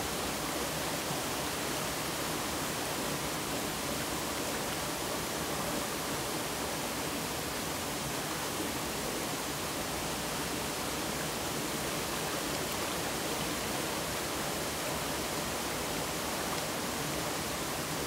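Water of a mountain valley stream running steadily: an even, unbroken rush.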